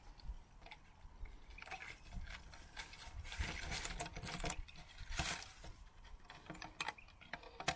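Plastic-bottle cordage crinkling and crackling as it is wrapped and pulled tight around a branch, with hand-handling rustles, in irregular faint bursts that are densest around the middle.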